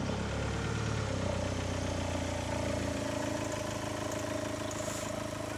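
Volkswagen minibus engine running steadily at low revs, pulling in and idling; its deeper rumble eases about three seconds in.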